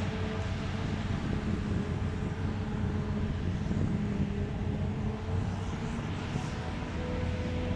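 Diesel engine of heavy farm machinery running steadily under load, a continuous drone whose pitch steps slightly higher near the end.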